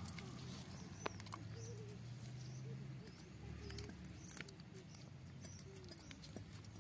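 Faint outdoor ambience with distant birds calling, including soft wavering low calls and a few high chirps, over a low steady hum, with a few soft clicks.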